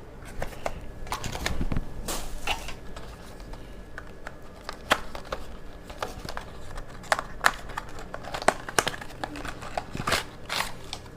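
Plastic packaging crinkling and tearing in hand, irregular sharp crackles, as a new SSD is unwrapped.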